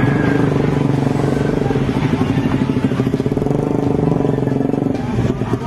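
Small motorcycle engines running close by, a steady low drone.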